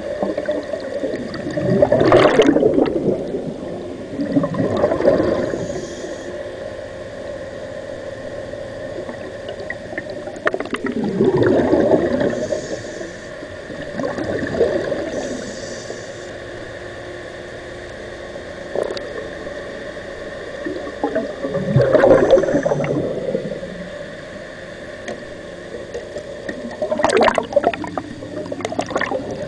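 Scuba diver breathing underwater through a regulator: loud gurgling bursts of exhaled bubbles every few seconds, about six in all, over a steady faint tone.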